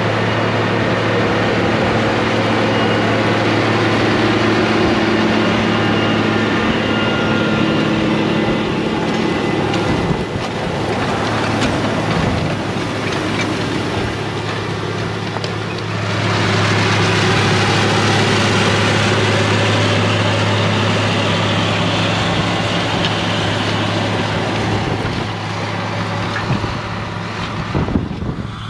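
White 4-270 tractor's Caterpillar 10.5-litre six-cylinder turbocharged diesel running steadily under load while pulling a strip-till toolbar, with wind buffeting the microphone. The engine sound grows louder a little over halfway through.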